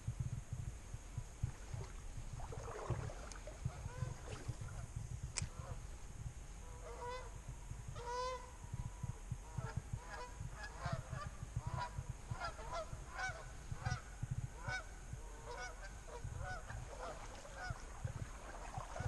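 A small flock of geese flying over and honking: short repeated calls, scattered at first and coming thick and fast from about a third of the way in. A low rumble runs underneath.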